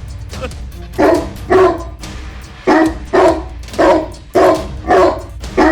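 A dog barking repeatedly, about two barks a second, over background music.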